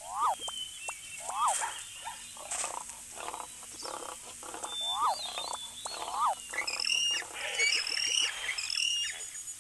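A mix of animal call sound effects. A short call that rises and then falls in pitch comes back about four times, with rougher calls between. Higher, squealing calls repeat over the last few seconds.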